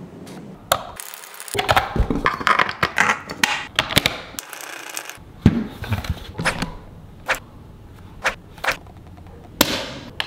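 Hands handling a toy figure: a run of sharp clicks and taps from its parts and panel being opened and set down, with two short bursts of rustling.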